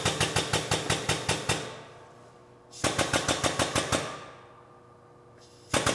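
Shop press driving a synchronizer down onto a T56 transmission main shaft, running in bursts of rapid pulsing at about eight pulses a second. There is a long burst at the start, a shorter one about three seconds in and a brief one at the end, as the synchronizer is pressed down to bottom out.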